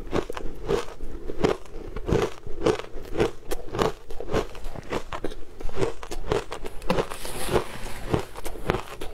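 Shaved ice being chewed up close to a clip-on microphone: steady crunching, about two to three crunches a second.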